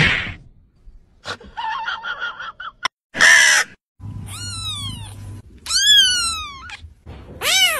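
Days-old kitten mewing: three high calls about a second and a half apart, each sliding down in pitch. Just before the first call there is a short, loud rushing burst.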